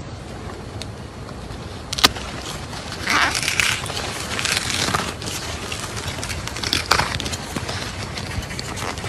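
A metal spoon cutting into and scooping the firm flesh of a peach: several scraping strokes, with a sharp click about two seconds in.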